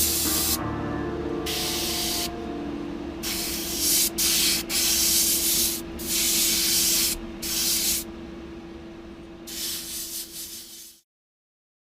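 Spray paint hissing in about seven short bursts, each half a second to a second long, over a steady low hum; the sound cuts off suddenly near the end.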